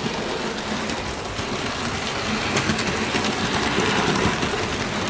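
Bachmann OO gauge S&D 7F model steam locomotive running on the track, a steady mechanical whirr of its motor and wheels on the rails with a few faint clicks.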